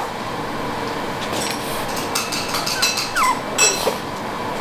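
Red toy poodle puppies scuffling in play: a cluster of sharp clicks from their claws on a wooden floor through the middle, with a few brief high squeaks, over a steady background hiss.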